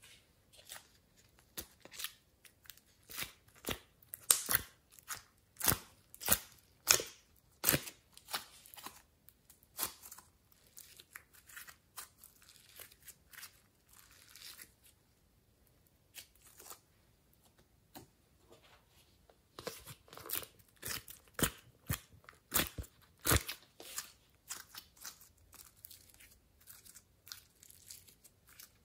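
Glossy slime being stretched and squeezed by hand, giving off a run of sharp little clicks and crackles. The clicks come thick in the first ten seconds and again from about twenty seconds in, sparser in between.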